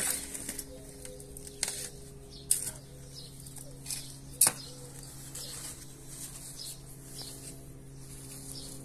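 Potting substrate and plastic plant pots being handled: rustling and scraping of soil and perlite, with a few short knocks, the sharpest about four and a half seconds in. A steady low hum runs underneath.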